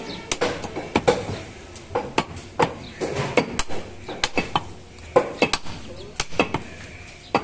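Butcher's cleaver chopping beef on a wooden log chopping block: a string of irregular, sharp knocks, some with a dull woody thud.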